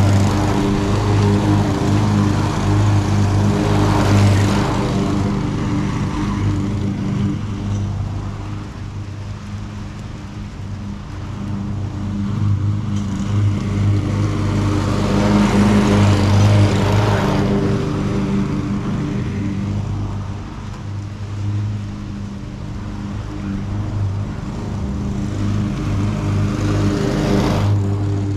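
Gas lawn mower engine running steadily under load as it cuts wet grass, its loudness rising and easing in slow swells.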